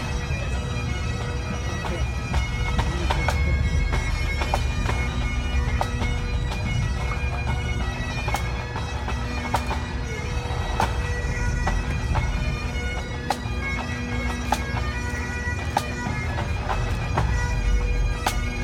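Pipe band playing: massed Highland bagpipes with steady drones under the chanter melody, and drums striking throughout.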